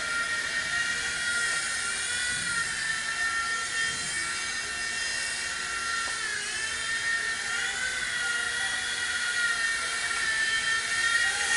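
WLtoys V911 micro 4-channel RC helicopter whining steadily in flight from its small electric motors and spinning rotor. The pitch dips briefly about six seconds in, then rises again.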